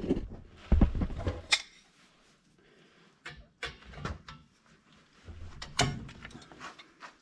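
Hand tools clinking and knocking on the old front drum brake's shoes and hardware as the shoes are worked off: a string of separate sharp metal knocks and clicks with short pauses between them.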